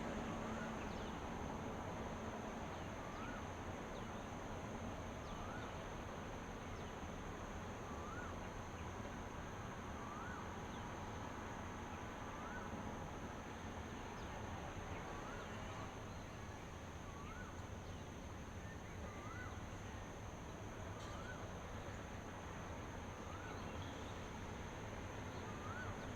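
Dawn outdoor ambience: a steady high-pitched insect drone, with a short rising call repeated about every one and a half to two seconds over a low, even background rumble.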